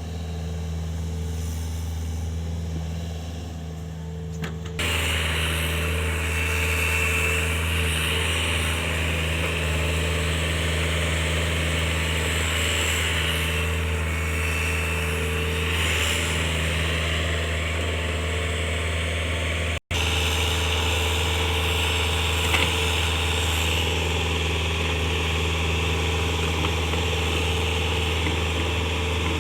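Mini excavator's diesel engine running steadily, its hum getting louder and busier about five seconds in as it works. The sound drops out for an instant near twenty seconds.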